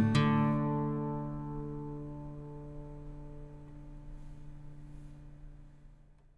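Background music ending on a last chord, struck just after the start, that rings on and slowly fades away to silence near the end.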